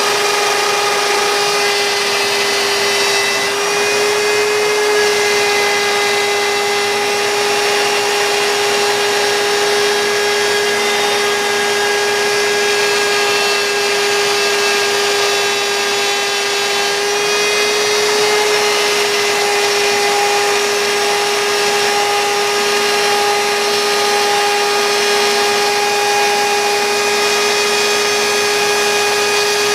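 CNC router spindle running at a steady high whine while it cuts the wooden sled parts; the pitch lifts briefly twice as the load changes.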